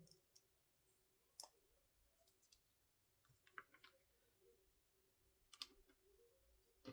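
Faint, scattered clicks of small plastic LEGO pieces being handled and pressed together, a few separate clicks over a low background hum.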